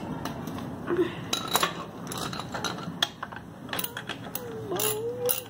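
Scattered metallic clinks and clicks of hand tools and metal parts as a scooter's exhaust is bolted back on over a new gasket.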